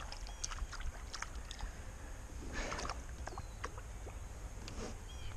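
Small boat on river water, heard as a steady low rumble with scattered light knocks. There is a brief water swish about two and a half seconds in and a smaller one near the end.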